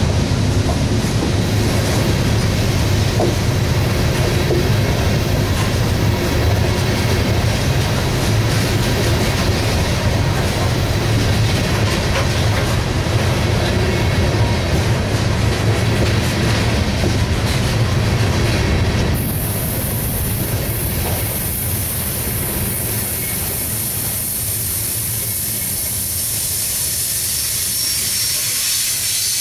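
Loaded coal hopper cars of a long freight train rolling past, steel wheels on rail giving a steady low rumble with rapid clicking. About two-thirds of the way through the rumble drops a little and a steady high hiss comes in abruptly.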